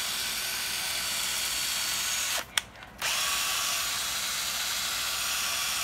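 National EZT108 12 V cordless drill-driver running with no load, a steady motor whine. About two and a half seconds in, it stops for roughly half a second with a single click, then starts again.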